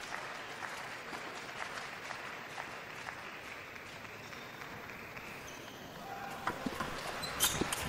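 Steady murmur and fading applause of an arena crowd, then near the end a few sharp clicks of a table tennis ball off the table and rubber bats as a serve is played and returned.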